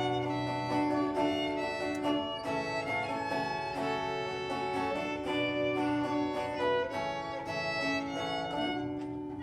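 Instrumental folk tune: a fiddle plays the melody over a plucked-string accompaniment.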